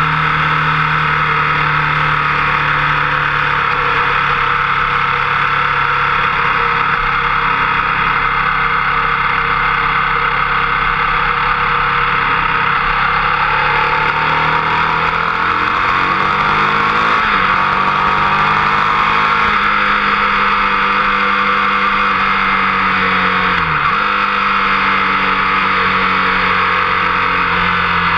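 Motorcycle engine running hard at speed, picked up by a fork-mounted camera with steady wind rush over it. The engine note climbs about halfway through, holds, then dips sharply and recovers about three-quarters of the way in.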